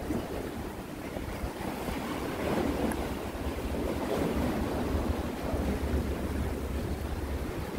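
Wind buffeting the microphone in a low rumble, over the wash of sea waves against the concrete tetrapods of a breakwater.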